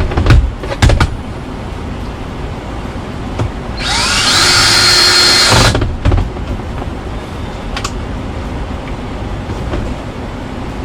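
Power drill run once for about two seconds, its motor whine rising as it spins up, after a few sharp clunks near the start.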